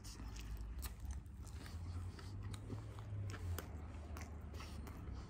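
A person biting into and chewing a nori-wrapped maki sushi roll, with many small irregular mouth clicks.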